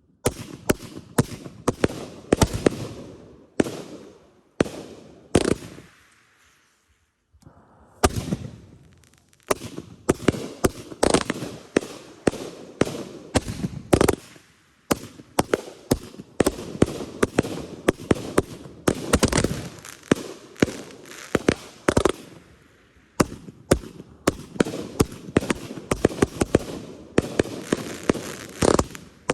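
Consumer fireworks going off: a rapid, irregular string of sharp bangs and crackles, with a brief lull about six to eight seconds in.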